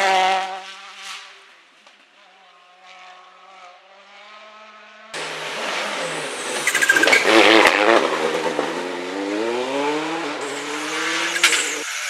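A rally car's engine fading quickly as the car speeds away. After a sudden cut about five seconds in, another rally car runs loud, its engine pitch dipping and then climbing steadily as it accelerates hard.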